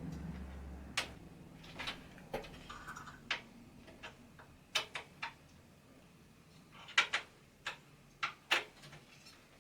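Irregular sharp clicks and knocks of a CPU cooler heatsink being set in place and fastened onto a desktop PC's motherboard, a dozen or so taps with short gaps between them.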